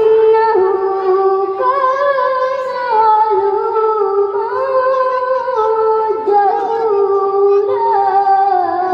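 A boy's voice chanting Quran recitation (tilawat) in a melodic style, drawing out long held notes that waver and turn in pitch.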